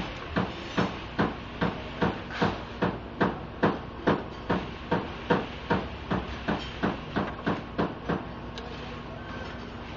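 Metal tool knocking in a steady rhythm on an open car engine's cylinder head, about twenty sharp strokes at roughly two and a half a second, stopping about eight and a half seconds in.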